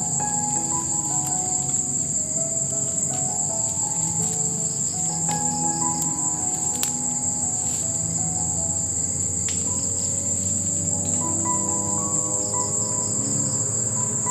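Insects chirping in a steady high-pitched drone, with faint pulsing just below it. Underneath, soft music plays slow held notes that change pitch, and a few sharp clicks come through, one louder about halfway through.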